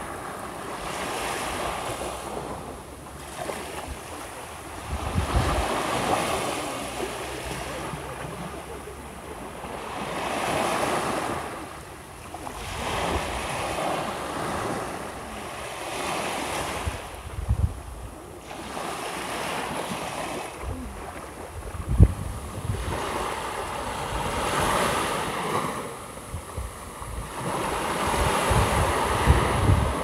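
Small waves breaking and washing up a sandy beach, the hiss swelling and falling back every few seconds, with wind buffeting the microphone in short low rumbles now and then.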